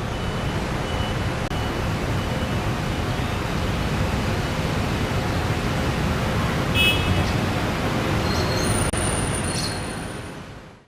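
Steady rushing of a waterfall, with a few short bird chirps in the second half.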